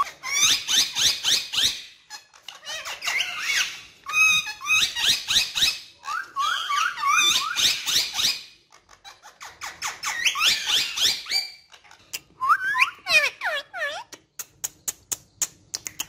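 Indian ringneck parakeets chattering: bursts of rapid, high-pitched chirping calls with quick pitch glides, several phrases with short pauses between them. Near the end the chirps give way to a quick, even run of sharp clicks, about six a second.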